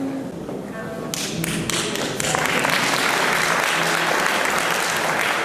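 Audience applause: a few scattered claps about a second in that quickly swell into steady, dense clapping, over faint held instrument notes at the start.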